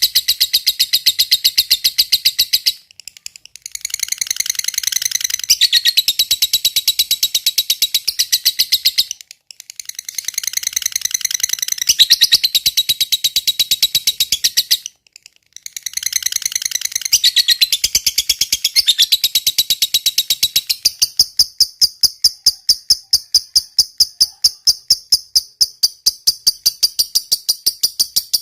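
Lovebird singing the long, rapid chattering trill that keepers call 'ngekek panjang': fast, even strings of shrill notes in long bouts broken by three short pauses. Near the end it settles into a thinner, steadier pulsing.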